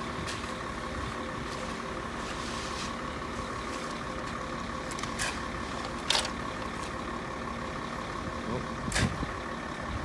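Truck engine running steadily at constant speed, with a few short scraping knocks of concrete tools about halfway through and near the end.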